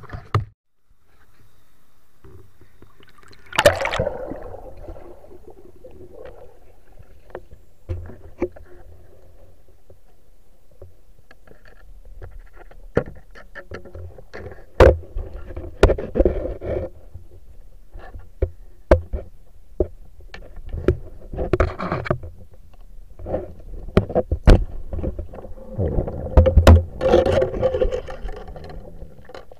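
Muffled underwater sound from a camera held under water while spearfishing: scattered sharp clicks and knocks, with bursts of rushing water noise. There is a loud rush about four seconds in, and the bursts grow busier near the end.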